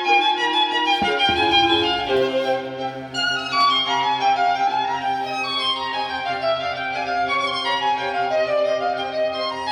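Recorded classical violin music with sustained, melodic bowed notes, played back through a vintage hi-fi system with Lafayette alnico speakers.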